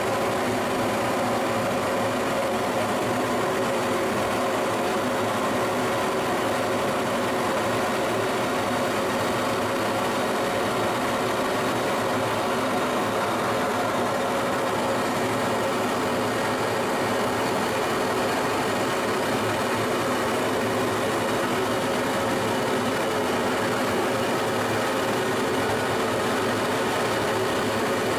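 Fighter jet engine running steadily: an even rush of noise with several steady tones, unchanging in loudness and pitch.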